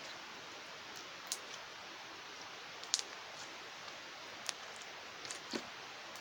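Putty-like slime being stretched and squished by hand, giving scattered small clicks and pops over a steady hiss, the sharpest about three seconds in.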